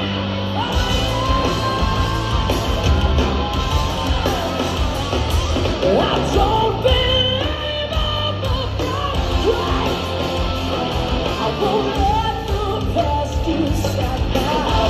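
Hard rock band playing live at full volume: pounding drums, distorted electric guitars and bass, with a woman's voice singing and shouting over them.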